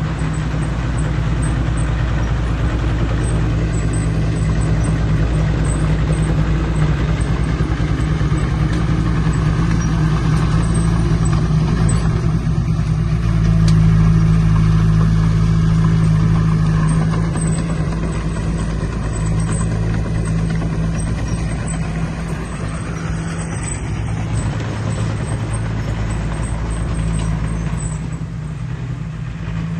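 Diesel engine of heavy earthmoving equipment running steadily under load, growing louder around the middle and then easing off.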